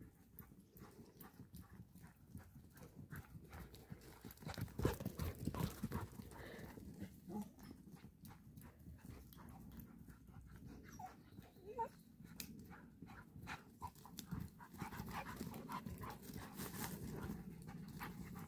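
Two dogs playing: panting, over a steady run of quick light crunches and ticks of steps on dry dirt and twigs, busiest about a third of the way in and again near the end.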